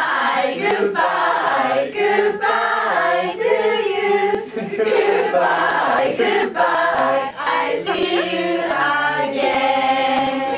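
A group of young women singing a song together, with many voices at once.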